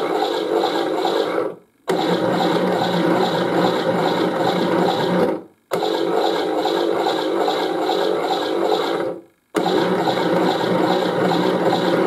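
Zanussi Auto K2214 toy washing machine running its wash action, the drum turning with a steady whirring churn. It stops dead for a moment three times, about every four seconds, between tumbles.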